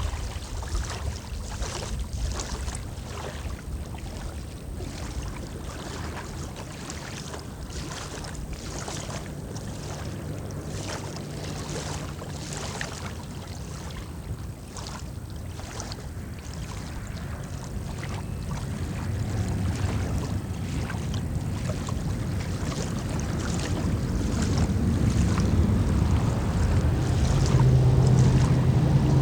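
Wind buffeting the microphone and water lapping, with an engine's steady hum growing louder over the last ten seconds as it approaches.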